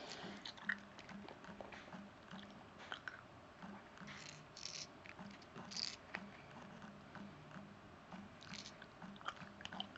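Faint wet mouth sounds of someone sucking on a lollipop, with short smacking, slurping bursts and scattered light clicks, over a faint steady hum.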